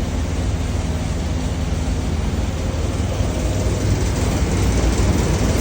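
Tea-sifting machine running steadily, grading the tea particles by size. It makes an even mechanical drone with a strong low hum under a broad steady hiss.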